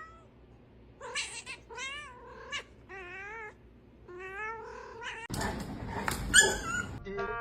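A cat yowling in a string of about five drawn-out calls, each wavering in pitch. About five seconds in comes a louder, harsh noisy stretch.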